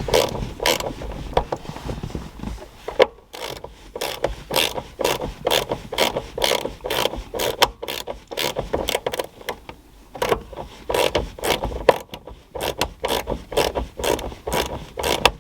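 Small Mac Tools ratcheting screwdriver clicking in quick, even runs, a few clicks a second, as it backs out old speaker mounting screws. The runs stop briefly twice.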